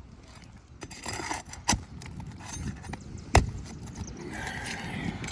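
A hand tool scraping and knocking against asphalt roof shingles as a shingle is worked loose, with two sharp knocks, the louder about three and a half seconds in.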